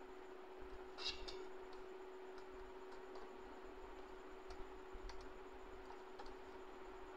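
Faint scattered clicks of fingers pressing the buttons and tapping the plastic case of an Epson L3115 ink-tank printer, the loudest about a second in and a few more later, over a steady low hum.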